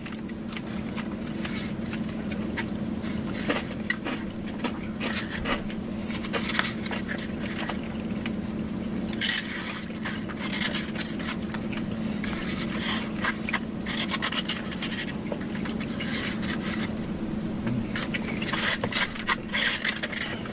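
Close-up eating sounds: chewing and crackling bites of fried chicken, with scraping and clicking from handling the food and its container, over a steady low hum.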